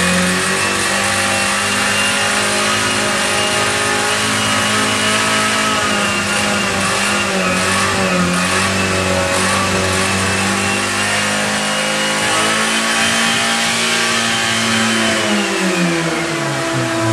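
Nissan Cherry engine revving hard while the car stands still, held at high revs with slight wavering, then the revs fall away near the end. The engine is being deliberately run flat out to try to blow it up, with the engine bay pouring smoke.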